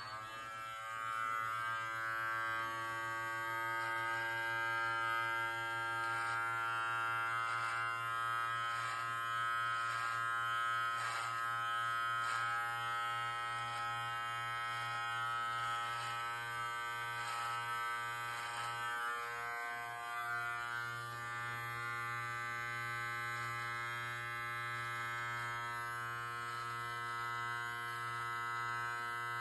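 Live Bearded MT-1 cordless beard trimmer running with its guard off, a steady buzz, as it cuts freehand through beard hair.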